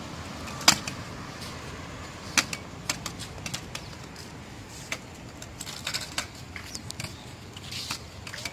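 Kick scooter's small wheels rolling over a concrete skatepark surface, with the scooter rattling and clacking irregularly; the sharpest clacks come about a second in and again at about two and a half seconds.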